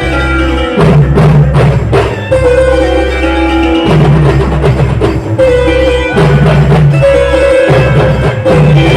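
Loud instrumental band music: held melody notes over a heavy bass and regularly struck drums and percussion.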